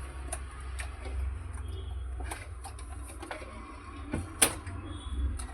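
Scattered plastic clicks and taps of cables being pulled off a desktop PC's hard disk, with one sharper click about four and a half seconds in, over a steady low hum.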